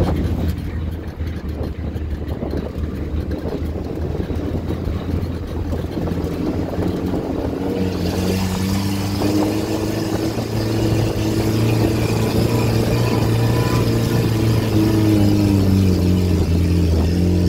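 Off-road vehicle's engine running as it drives a rough trail, heard from inside the cab. Its note wavers up and down, and a rushing noise grows in about halfway through.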